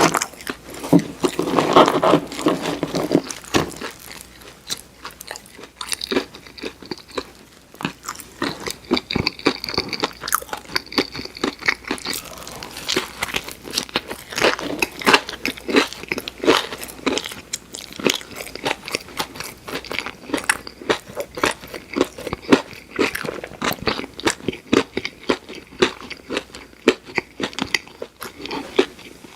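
A person chewing and biting crispy fried food, a dense stream of short crunches and mouth clicks.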